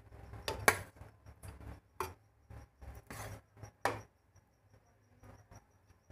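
A steel spoon scraping and knocking against a plate and a metal pot as cooked rice is spooned in: a run of irregular sharp taps among softer scrapes, thinning out about four and a half seconds in.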